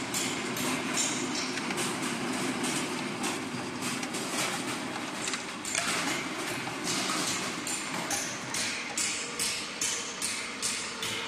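A stainless-steel roller fruit grading machine running with a steady mechanical hum. Frequent clicks and knocks come from small hard red fruit tumbling over the rollers and dropping down the chutes into plastic crates, and the knocks come more regularly, about twice a second, near the end.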